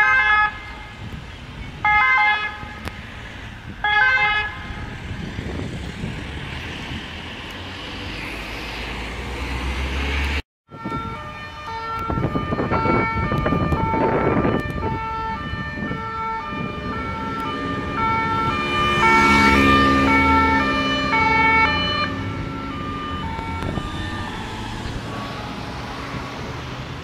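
Emergency-vehicle sirens in traffic: an ambulance gives three short siren blasts about two seconds apart, followed by road noise. After a brief drop-out, a two-tone siren sounds its alternating high and low notes for about twelve seconds, loudest as the vehicle passes close by.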